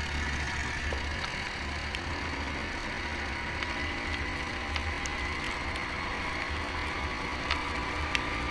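Yamaha Grizzly 700 ATV's single-cylinder engine running at a steady riding pace, with tyre noise on gravel and scattered sharp ticks and clicks.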